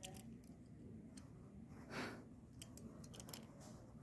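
Near silence: room tone with a few faint clicks and one soft swish about halfway through, from a small toy truck being handled on a play mat.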